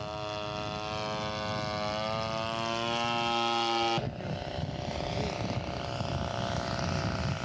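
Gasoline two-stroke Quadra 65 engine of a large-scale radio-control Piper Cub model running in flight, its pitch rising slightly. About halfway through the sound changes abruptly to a lower, rougher engine drone.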